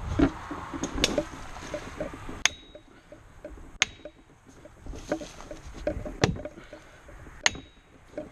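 About six sharp knocks struck at uneven intervals, two of them with a short high metallic ring, with rustling and handling noise between them.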